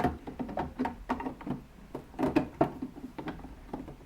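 Plastic Lego bricks clicking and knocking as the modular building's floor section is handled and lifted off: a quick, irregular run of clicks.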